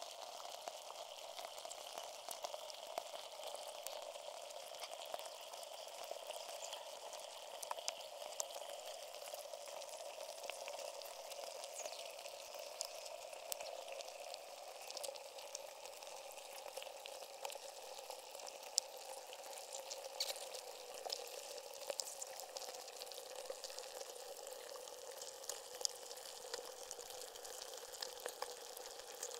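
Block of ice melting in water, heard through contact microphones frozen inside it: a steady, dense fizzing crackle of countless tiny clicks and pops, with a few louder ticks scattered through it.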